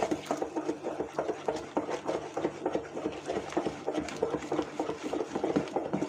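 Wooden spoon briskly stirring kefir in a plastic bowl, a fast, even run of wet slapping strokes against the bowl.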